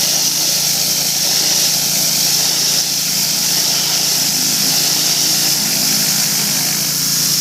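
Craftsman 2500 PSI pressure washer's engine running steadily, with the constant hiss of water spraying from the turbo nozzle against vinyl siding.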